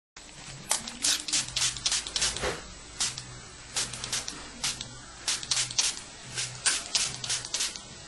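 Hand spray bottle squirting water in short hissing bursts, several quick squirts at a time with brief pauses between runs, misting a cockatiel for its spray-bath.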